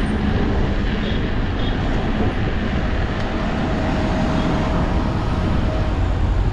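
Steady wind rumble on an action camera's microphone, with tyre and street noise, while riding an electric scooter slowly through city traffic.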